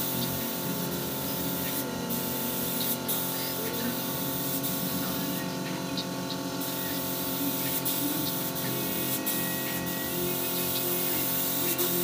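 Compressed-air spray gun hissing as it sprays finish onto wood. The hiss stops briefly about two seconds in, and again for about a second around six seconds in, over a steady droning hum.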